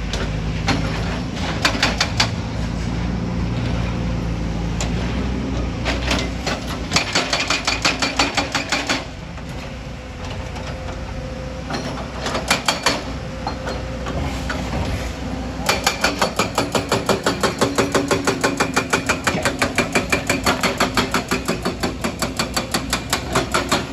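Excavator-mounted hydraulic rock breaker hammering rock in bursts of rapid, evenly spaced blows, the longest run lasting about eight seconds near the end, over the excavator's steady diesel engine drone.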